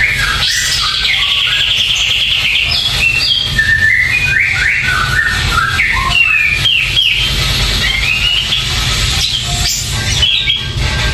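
Caged kapas tembak bulbul singing a fast, continuous run of short whistled notes that slide up and down, with a rapid trill about one to two seconds in, over a steady low hum.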